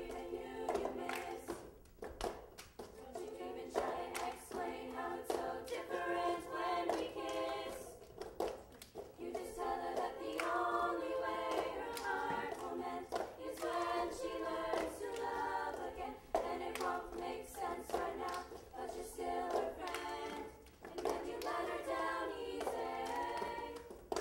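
A young school chorus singing a cappella over a cup-game rhythm: plastic cups tapped, knocked and slid on the wooden stage floor, mixed with hand claps. The singing breaks off briefly twice, about two seconds in and again around eight seconds, while the cup rhythm carries on.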